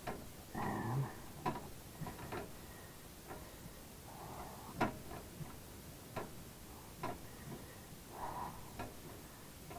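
Open-end wrenches clicking and knocking irregularly against the gas line fitting of an Atwood RV furnace as the line is being loosened, about a dozen sharp metal taps.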